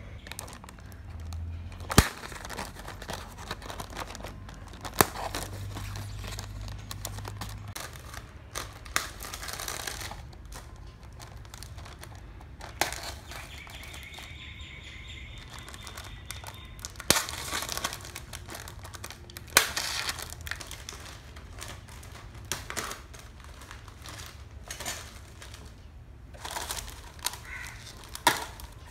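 Packaging crinkling and rustling as a small toy kitchen set is unboxed, broken by sharp knocks every few seconds.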